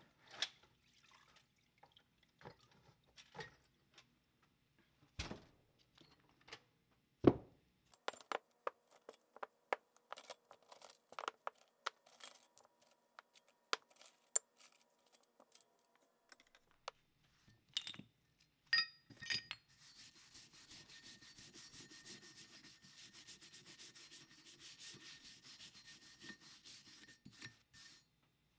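Rusty steel floor-jack parts being taken from an aluminium strainer basket and set down on a towel: scattered knocks and metal clinks, thickest in the middle, with one sharp knock about seven seconds in. For the last eight seconds or so, a hand brush scrubs one of the parts in quick, steady strokes.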